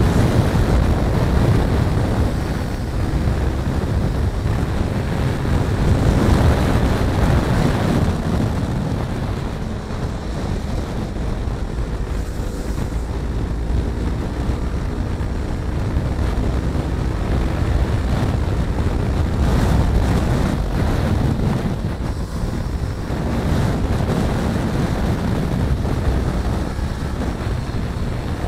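Heavy wind rushing over the microphone of a motorcycle at road speed, with the first-generation Yamaha R3's 321 cc parallel-twin engine running steadily underneath.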